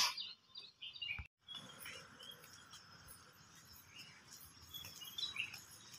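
Faint early-morning outdoor ambience: scattered short bird chirps and insect calls over a low hiss. It opens with a brief loud burst, and there is a moment of dead silence about a second in.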